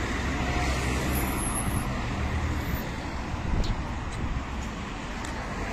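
Steady road traffic: car engines running and tyre noise along a busy street, with a constant low rumble.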